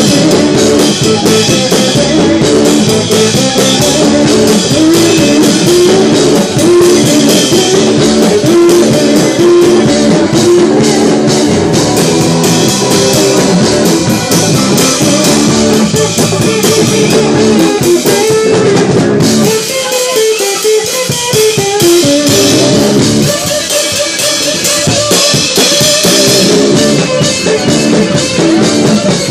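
A live band plays an instrumental: steel guitar lines over a drum kit with cymbals, an electric guitar, a five-string bass guitar and congas. About twenty seconds in, the bass and kick drum drop out for a moment, leaving the guitars and cymbals, then come back in.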